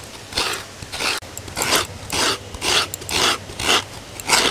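Fresh coconut being grated by hand: about two scraping strokes a second of coconut flesh against a grater.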